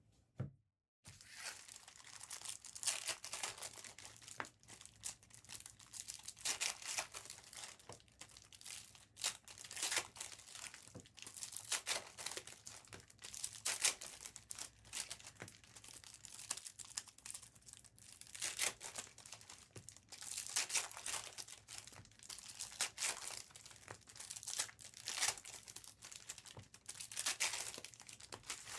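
Plastic trading-card pack wrappers crinkling and tearing as packs are ripped open, in irregular rustling bursts.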